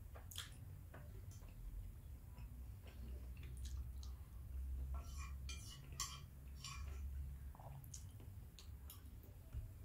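Faint eating sounds: a metal fork clicking and scraping on a plate as pasta is twirled, with chewing and mouth noises, over a steady low hum.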